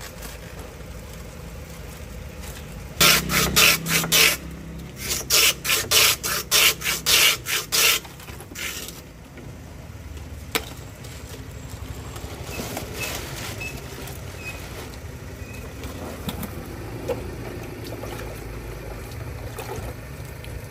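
A block of ice shoved back and forth over the blade of a wooden hand ice shaver: about a dozen loud, quick rasping scrapes in two runs, a few seconds in. Then a low steady street hum with a few small knocks.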